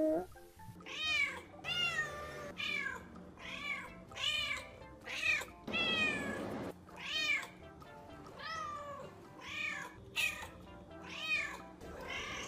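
Two house cats meowing over and over: a quick string of short meows about one a second, with a longer drawn-out one about six seconds in.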